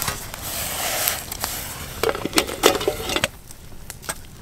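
Steady hiss of a campfire, then, about two seconds in, a metal camp pot clanking and scraping several times in quick succession as cedar sprigs in water are stirred in it with a stick.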